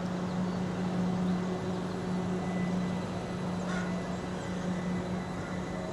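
Steady low hum of a train at the station platform, with one even low tone throughout.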